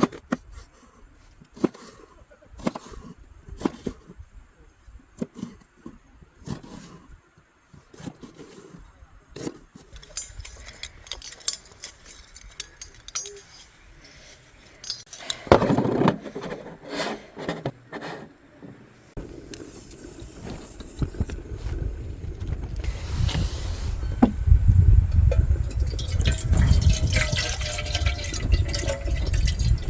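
Camp cooking handling sounds: scattered clicks and knocks of pots and utensils, with water sounds. About two-thirds through, a steady low rushing noise sets in and builds louder.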